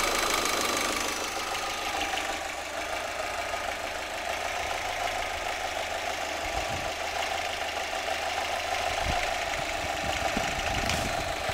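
Astra G 1.6 16-valve four-cylinder petrol engine idling hot, with the faint knock the owner hears only when it is warm and cannot explain. A few low thuds come in the second half.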